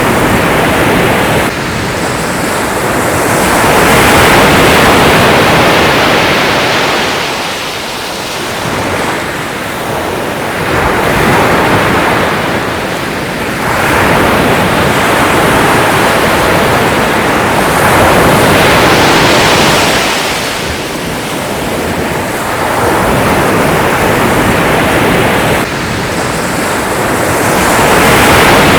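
Sea waves breaking and washing up the shore, a continuous rush of surf that swells and falls back every four to six seconds.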